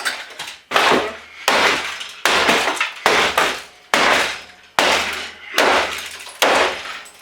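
Repeated hammer blows striking an old desktop computer to force its parts loose. The blows land at an even pace of about one every 0.8 seconds, and each one rings briefly.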